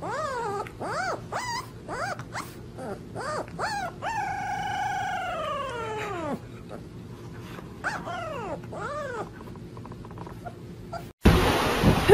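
A corgi puppy howling: a run of short yips that rise and fall, then one long howl of about two seconds that drops in pitch at its end, then a few more short yips. Near the end the sound cuts abruptly to loud wind noise on the microphone.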